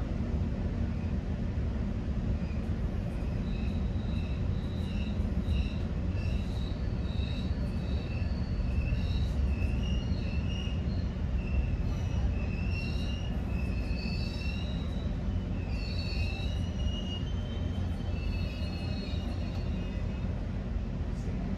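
GO Transit commuter train running, heard from inside a coach: a steady low rumble of the wheels on the rails. From about two seconds in until near the end, the steel wheels give intermittent high-pitched squeals.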